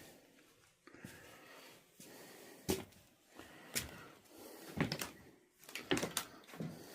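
A handful of scattered knocks and clunks in a small room, irregularly spaced over a few seconds.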